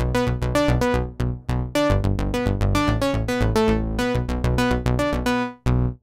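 Sequential OB-6 analog polyphonic synthesizer playing a fast run of short, plucky notes, about five a second, that breaks off near the end.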